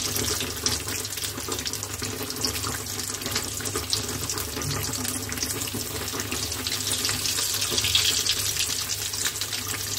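Besan-battered bread pakoras deep-frying in hot oil in a kadhai: a steady crackling sizzle, swelling briefly about eight seconds in as one is lifted and turned.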